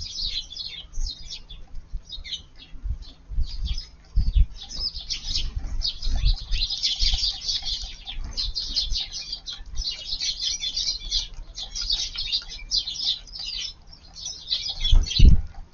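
A flock of Eurasian tree sparrows chirping busily, many short high calls overlapping without a break. Occasional low thumps come through, the loudest near the end.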